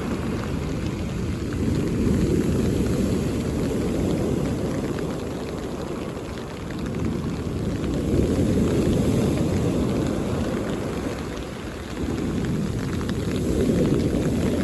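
Mediterranean sea waves breaking on the beach, the surf swelling and easing every five or six seconds.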